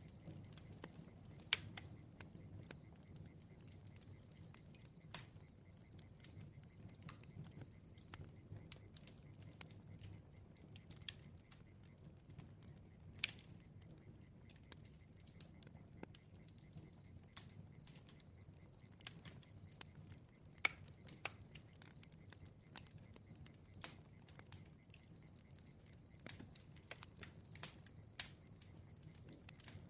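Bonfire crackling softly: scattered sharp pops and snaps, a few of them louder, over a low steady rumble of burning wood.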